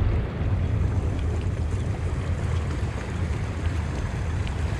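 Fast-flowing river water rushing and churning along the bank, with wind buffeting the microphone in a steady low rumble.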